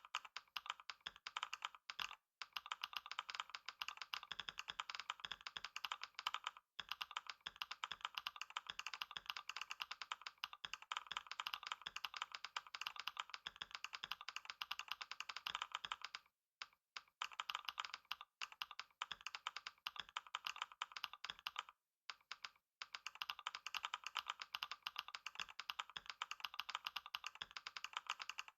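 Computer keyboard being typed on fast and without a break, a dense stream of key clicks, with brief pauses a few times.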